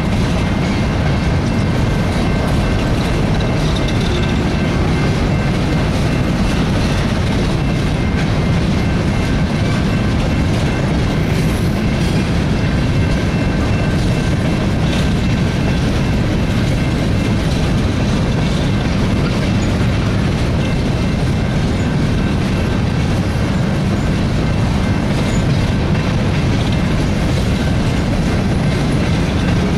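Freight train of empty open-top hopper cars rolling past at speed: a steady loud rumble with wheels clacking over the rail joints, and a faint steady high ringing above it.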